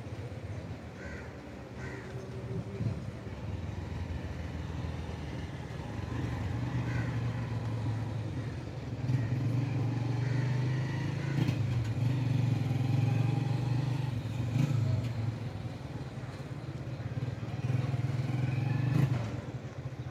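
A motor vehicle engine running with a steady low hum. It grows louder about halfway through and drops off sharply near the end.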